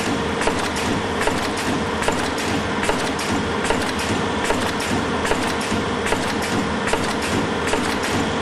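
Multi-track sachet packing machine running in automatic at 74 packs a minute: a steady mechanical clatter of frequent clicks over a constant hum.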